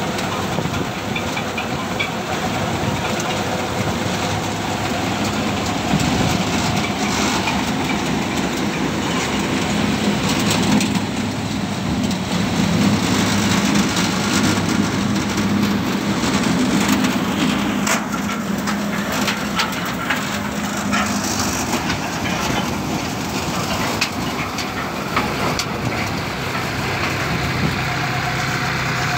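Tractor-driven mini combine thresher running steadily while threshing cumin: a dense, steady mechanical drone with a low hum and scattered sharp clicks.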